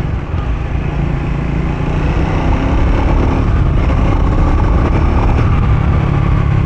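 Triumph Speed 400's 398 cc single-cylinder engine running under way and being opened up, getting louder about two seconds in as the bike accelerates.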